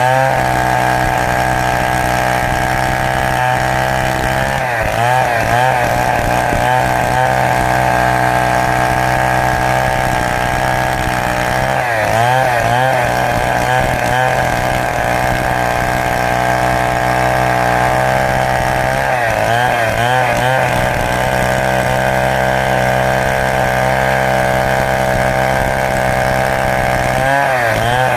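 Stihl two-stroke chainsaw running at high revs under load, ripping lengthwise through a large teak log. The engine note holds steady, wavering briefly a few times, around 4 s, 12 s, 20 s and 27 s in, as the load on the chain shifts.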